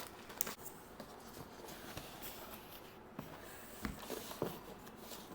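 Faint handling of an iPad retail box: a few scattered light taps and clicks over quiet room noise.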